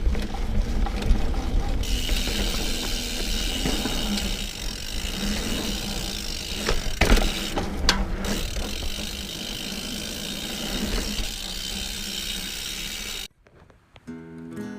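Diamondback Mason Trail plus-tyred mountain bike ridden over dirt singletrack: steady tyre and drivetrain noise with rattling and ratchet-like ticking, and a few sharp knocks about seven to eight seconds in. It cuts off suddenly near the end, and acoustic guitar music begins.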